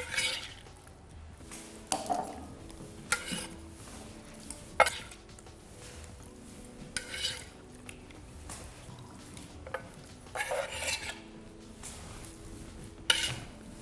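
Kitchen utensil clinking and scraping against a cutting board and a bowl as cubes of set jelly are moved into the bowl: about nine separate short knocks and scrapes, a second or two apart.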